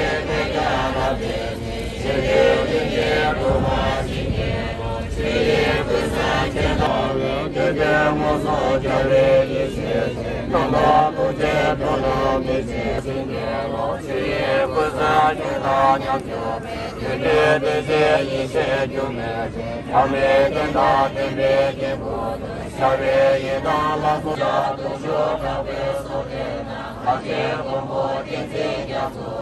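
A crowd of Tibetans chanting a prayer together in unison, many voices in a steady chant without a break.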